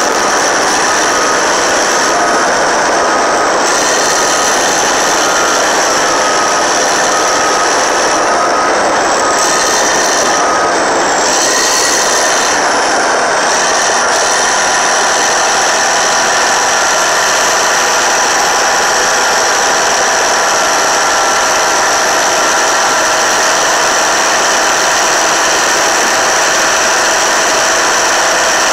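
Caterpillar D8T dozer's C15 ACERT diesel engine running hard and loud under load, with the grinding clatter of the moving machine. A reverse alarm beeps steadily through about the first ten seconds.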